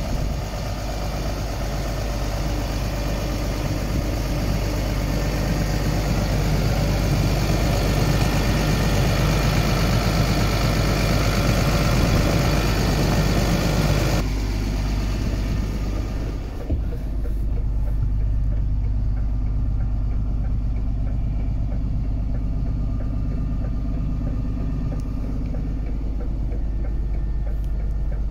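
DAF CF 65.220 truck's 6.7-litre six-cylinder diesel engine idling steadily, heard close at the open front engine flap. About fourteen seconds in, the sound turns duller, heard from inside the cab.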